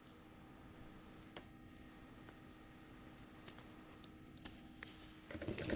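Faint, scattered clicks and taps of hands handling small parts and tape, a few single clicks spread over a low steady hum, with a louder burst of handling noise near the end.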